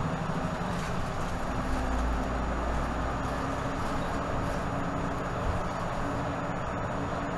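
Steady drone of a 2018 Nova Bus LFS diesel city bus running, heard from inside the cabin near the front door: low engine rumble and road noise, with a faint whine that comes and goes.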